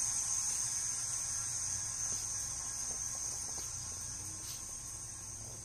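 Steady high-pitched insect chorus that runs without a break and fades slightly over the few seconds.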